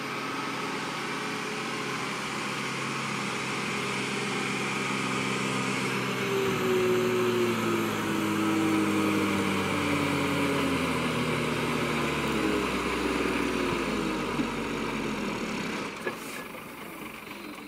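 Loaded Tata truck's diesel engine pulling hard up a dirt slope. It grows louder as the truck approaches, its note sagging slowly as the revs drop under the load, then falls away near the end as the truck passes.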